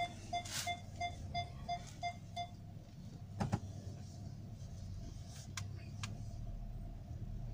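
A car's warning chime beeping about three times a second, stopping after about two and a half seconds; a sharp click follows about a second later. Underneath is the low hum of the car running as it pulls away.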